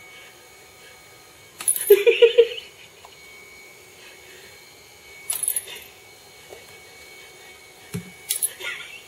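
Small bell on a cat's collar jingling in three short bursts, about two, five and a half, and eight and a half seconds in, as the cat jumps up and swats with its front paws.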